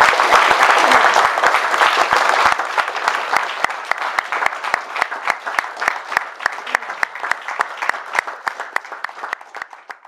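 Audience applauding: dense applause at first, thinning after a couple of seconds into scattered single claps that die away near the end.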